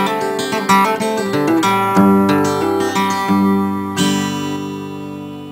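Solo acoustic guitar music, finger-picked and strummed; a final chord is struck about four seconds in and left to ring and fade out.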